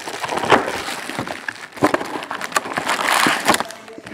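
Plastic shrink-wrap and foil trading-card packs crinkling and crackling as they are handled, with many small clicks and rustles. The rustling is loudest about three seconds in.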